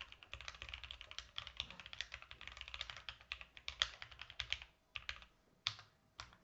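Keychron Q8 Alice-layout mechanical keyboard being typed on quickly, a dense run of keystrokes that thins out to a few single key presses near the end.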